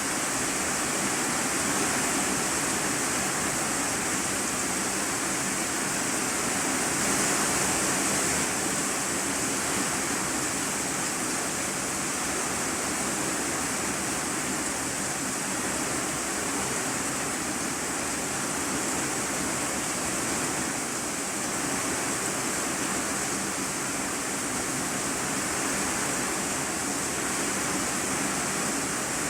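Heavy rain drumming steadily on an iron-sheet roof, heard from inside the room below as a dense, even hiss.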